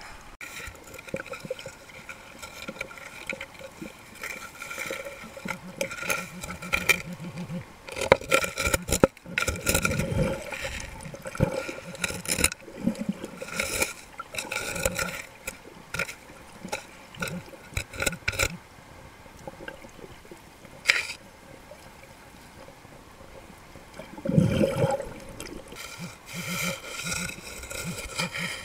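Muffled water sloshing and bubbling, heard with the microphone under shallow seawater, broken by irregular knocks.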